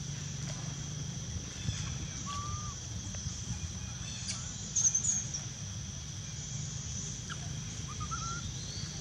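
Outdoor ambience: a few short bird chirps, the loudest cluster about five seconds in, over a steady high-pitched hum and a low rumble.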